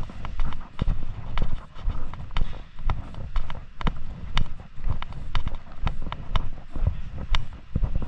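Footsteps on a hard surface at a steady walking pace, about two steps a second, over a low rumble.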